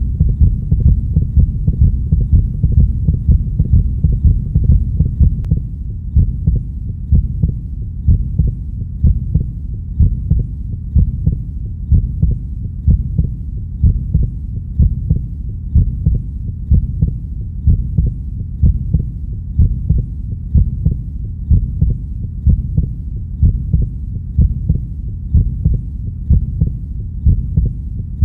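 A recorded heartbeat: a steady, regular pulse of low thumps over a continuous low hum, running a little quieter from about six seconds in.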